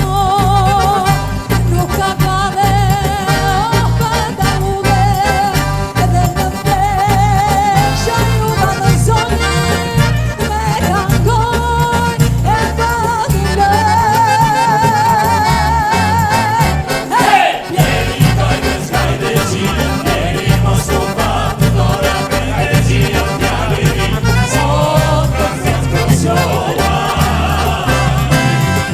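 Upbeat song: a singer with a strong wavering vibrato over a steady bass beat and band. The music drops out briefly about seventeen seconds in, then carries on.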